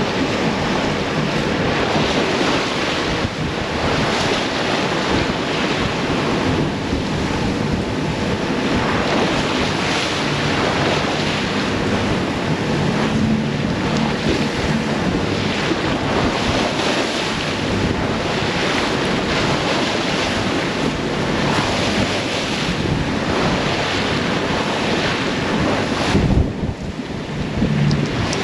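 Wind buffeting the microphone and rough sea rushing and breaking around a sailing yacht in a big, confused swell, rising and falling in surges, with a brief lull near the end.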